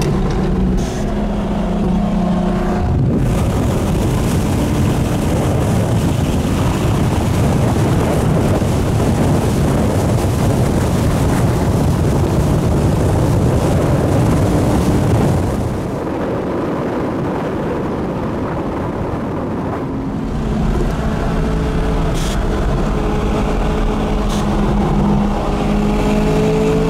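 Supercar engine heard from onboard during an acceleration run. A steady engine note gives way about three seconds in to a long stretch of loud, dense engine noise, which eases about fifteen seconds in. A clear engine note returns near the end, its pitch climbing slowly.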